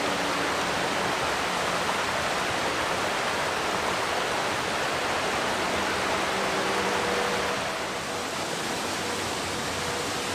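Steady rush of water from the Cola de Caballo waterfall and the rocky mountain stream below it, easing slightly about eight seconds in.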